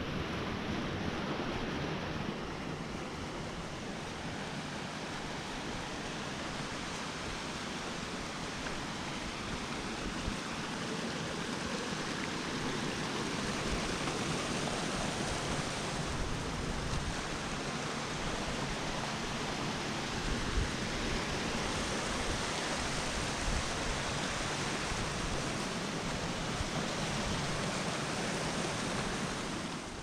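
Forest stream running: a steady, even rush of flowing water.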